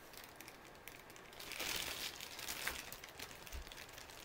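Clear plastic bag wrapped around a desk lamp crinkling as it is handled, loudest for about a second around the middle.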